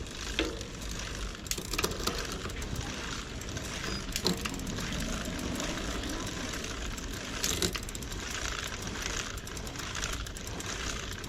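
Mountain bike drivetrain running: a steady rolling noise with a few sharp clicks. The chain is freshly oiled and no longer squeaks.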